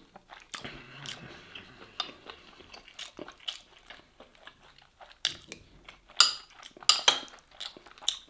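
Close-miked mouth sounds of a man chewing smoked beef short rib meat: wet smacks and sharp clicks, thickest a little past the middle.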